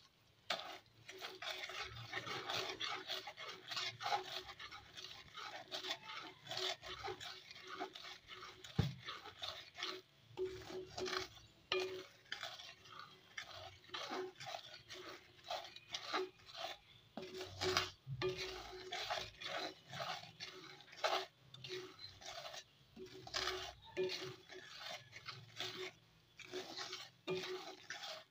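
Wooden spatula stirring and scraping around a metal kadai of boiling sugar-and-water syrup, a fast, irregular run of scrapes and taps against the pan while the sugar melts.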